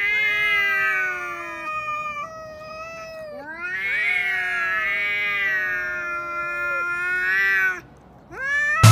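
Domestic cats in a face-off yowling (caterwauling): long, drawn-out, wavering howls that slide up and down in pitch, the threat call of a cat fight standoff. There is a short break about three seconds in, then another long yowl, then a brief rising yowl near the end.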